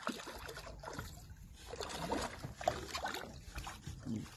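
Water splashing and sloshing at the surface beside a boat as a hooked Arctic char thrashes on the line.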